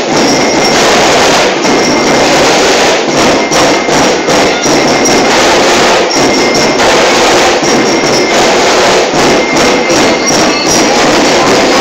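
School drum and bugle corps playing loud, dense percussion that runs without a break.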